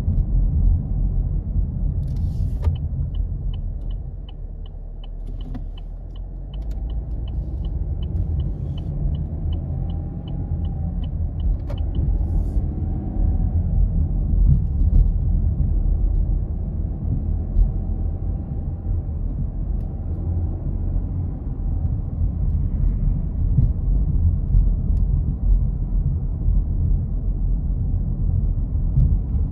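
Steady low rumble of a moving road vehicle or traffic. A run of short high electronic beeps, about two and a half a second, starts about three seconds in and stops near twelve seconds.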